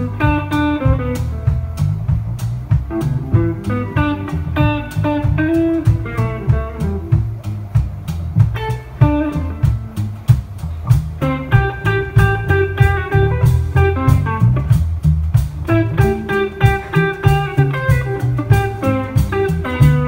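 Live band playing an instrumental: an electric guitar picks melodic lead phrases over bass guitar and a drum kit keeping a steady beat.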